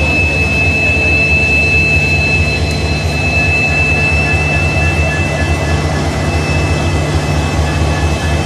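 WDP4D diesel-electric locomotives, with their EMD 16-710 two-stroke V16 engines, running at standstill: a steady low engine drone with a steady high whine over it.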